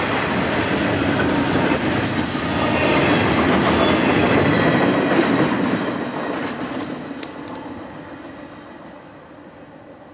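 Double-stack intermodal container train rolling past on steel rails: a loud, steady run of wheel and car noise that fades away after the last car passes, about six seconds in.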